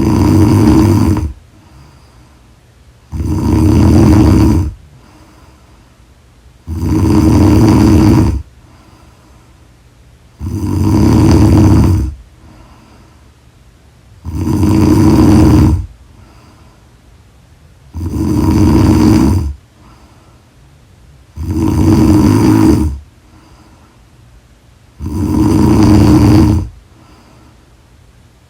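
A woman snoring loudly in her sleep: eight long snores, one about every three and a half seconds, each lasting about a second and a half, with quiet gaps between them.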